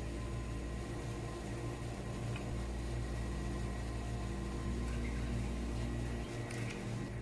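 Steady low hum with faint high steady tones above it and a few soft clicks. The low part of the hum shifts in level several times.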